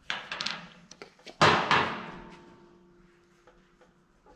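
Handling noise from a grease tub and the countershaft spacer being picked up: a brief clatter at the start, then about a second and a half in a sharp clank that keeps ringing with a fading tone for a couple of seconds.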